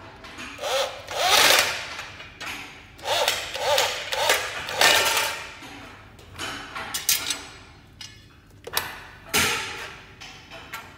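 Corded electric drill/driver running in several short bursts in the first five seconds, its motor whine rising each time it spins up, as it drives screws through a metal bracket into an aluminium shelf frame. A few sharp knocks follow later on.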